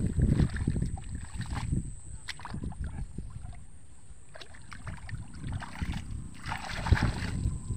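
Hands sloshing and splashing in shallow muddy water in small, irregular strokes.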